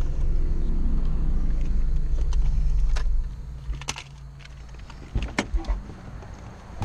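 A car's engine running, heard from inside the cabin, cut off abruptly about three seconds in. A handful of sharp clicks and knocks follow, like keys and a door latch being handled.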